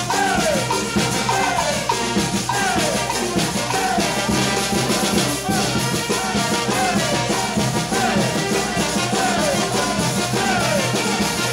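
Latin dance music from a band, with brass, drums and shakers over a steady beat. A short falling melodic phrase repeats about once a second.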